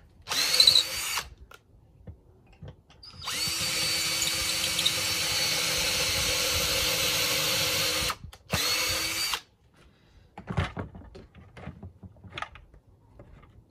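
Cordless DeWalt drill spinning a pocket-hole bit into wood through a pocket-hole jig, drilling down to the bit's depth stop. A brief burst comes first, then about five seconds of steady drilling with a constant motor whine, then another brief burst. A few light knocks follow as the drill is put down.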